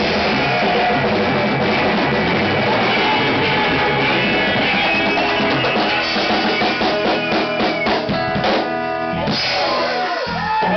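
A live blues-rock band with drum kit and guitar playing loud. From about six seconds in, the band plays a run of accented hits together, ending the tune near the end.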